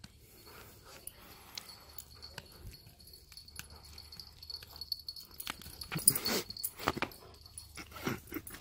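Siberian husky making dog sounds as it tugs on a plush toy held in a hand. Faint at first, louder about six seconds in and again near the end.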